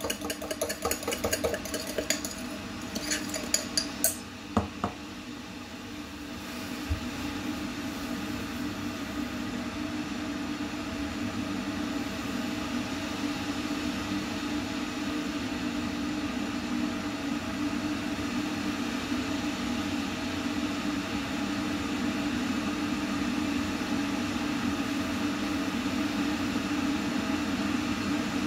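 Swan Automatic chrome electric kettle heating water: a steady low rumble that builds slowly as the water nears the boil. A run of light clicks and taps in the first four seconds.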